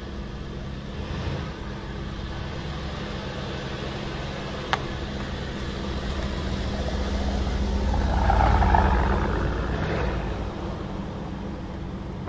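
Brabus 650's 4.0-litre biturbo V8 running with a steady low rumble. It grows louder for a few seconds past the middle, then eases back. There is a single short click near five seconds in.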